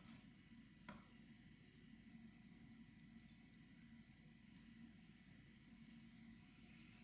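Faint sizzling of ghee melting and bubbling in a stainless steel frying pan, with fine crackling ticks over a low steady hum. A single light knock comes about a second in.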